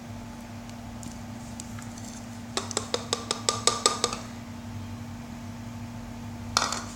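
A bowl being tapped or knocked rapidly with a hard object, giving a quick run of about ten clinks with a short ring. One more clatter comes near the end.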